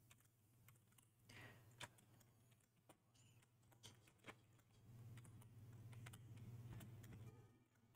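Faint typing on a computer keyboard: scattered, irregular keystrokes. A steady low hum comes in about five seconds in.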